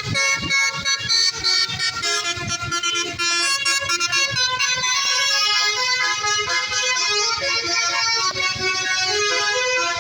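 Multi-trumpet basuri (telolet) bus horn playing a continuous melody of stepped notes, held loud throughout.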